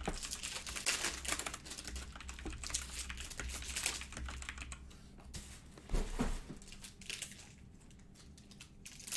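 Typing on a computer keyboard: a quick run of key clicks that thins out after about five seconds, with a dull thump about six seconds in.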